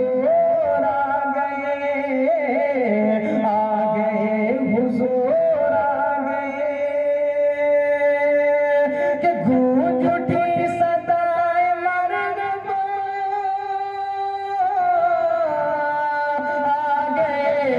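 A man singing a naat solo into a microphone, drawing out long held notes that waver and slide in pitch.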